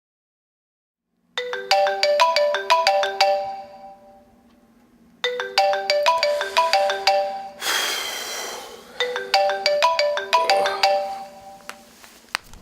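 A phone ringtone: a short, bright chiming melody played three times, about four seconds apart, with a brief rushing noise swell between the second and third.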